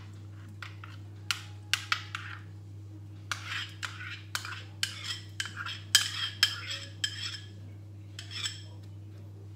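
A spoon scraping and clinking against a ceramic bowl in quick, irregular strokes as coconut milk is scraped out of it.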